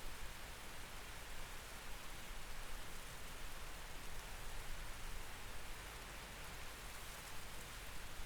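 Steady night rain heard through a window: an even, soft hiss of falling drops.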